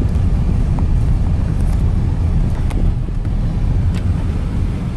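Steady low rumble inside a pickup truck's cab as it drives slowly along a gravel road, engine and tyre noise together, with a couple of faint ticks partway through.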